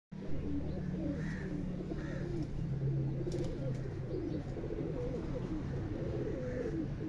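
Several domestic pigeons cooing continuously, their calls overlapping, over a steady low hum.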